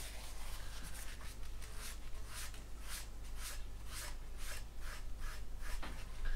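A paper tissue wiping over the painted plastic wing of a model aircraft kit in short rubbing strokes, about two a second, taking a dried enamel wash back off the surface.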